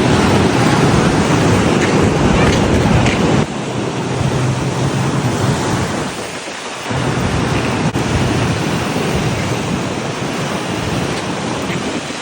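Ocean surf washing in with wind rumbling on the microphone; the rumble is heaviest for the first three seconds or so, then drops suddenly, leaving the steady wash of the waves.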